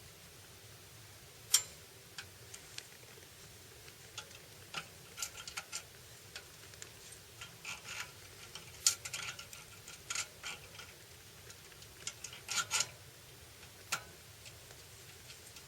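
Scattered light clicks and taps at irregular intervals, a dozen or more, with short clusters of several taps about 5, 9 and 12–13 seconds in.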